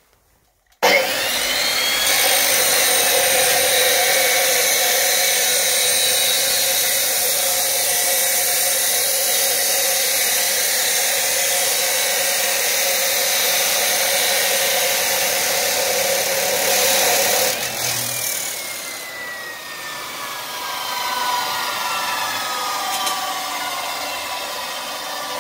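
Abrasive cut-off saw cutting through a rusty 3-inch steel pipe: it starts suddenly about a second in and grinds steadily for some 16 seconds. Near the end of the cut the noise drops away and the disc's whine falls steadily in pitch as the saw spins down.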